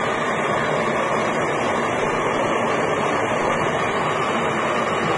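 Hand-held gas brazing torch burning with a steady, even rushing noise as its flame heats a metal rod.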